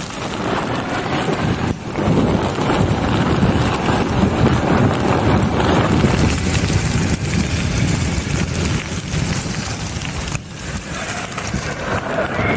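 Electric mountainboard's pneumatic tyres rolling over a gravel path, a steady rumble mixed with heavy wind noise on the microphone at speed. The noise dips briefly twice.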